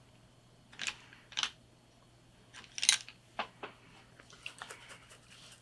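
A scattering of light clicks and taps from makeup palettes and brushes being handled, several of them close together in the second half.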